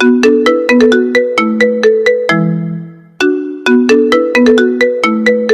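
Phone ringtone melody: a quick run of short, bright notes ending on a held lower note, then the same phrase starting again about three seconds in.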